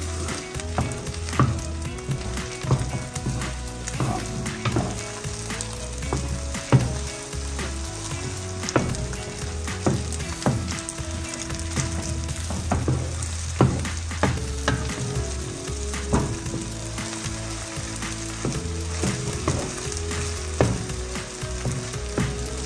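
Cooked rice and scrambled egg sizzling in hot oil in a frying pan while a wooden spatula stirs them, with irregular scrapes and knocks of the spatula against the pan.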